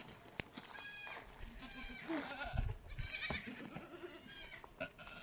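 Goats bleating: three short, high-pitched calls spaced a second or more apart.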